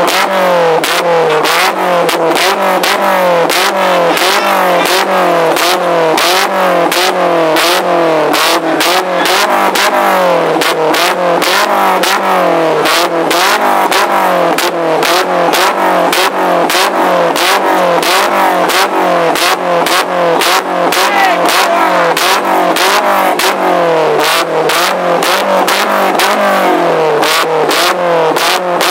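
Peugeot 206 GTI's four-cylinder engine being revved hard and repeatedly through its aftermarket exhaust, in quick rise-and-fall blips about one and a half a second, with sharp crackling pops throughout.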